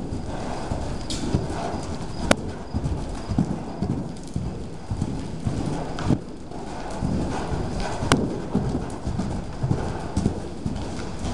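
Hoofbeats of a loose paint horse cantering on the soft dirt footing of an indoor arena: a run of dull, uneven thuds, with a couple of sharp clicks about two seconds in and again near eight seconds.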